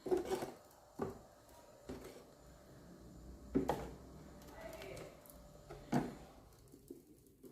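Sharp knocks and clicks from prying open the nailed wooden panel of a speaker cabinet, about five irregular strikes a second or more apart.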